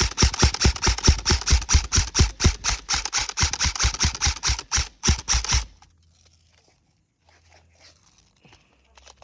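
Airsoft rifle firing a rapid, evenly spaced string of sharp shots, about seven a second, that stops abruptly a little past halfway. Only faint scattered ticks and rustles follow.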